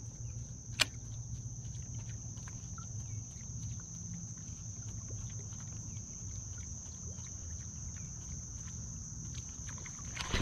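Steady high-pitched chorus of insects, with a single sharp click about a second in.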